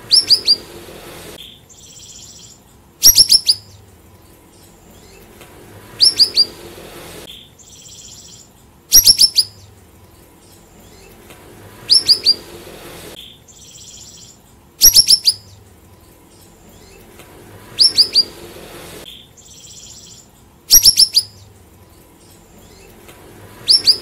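Siri-siri (cucak rawis) songbird call: a short phrase of three or four quick, sharp, high descending notes, repeated about every three seconds. A softer raspy note follows every other phrase. The exact repetition is typical of a looped lure recording (pancingan) used to prompt caged birds to sing.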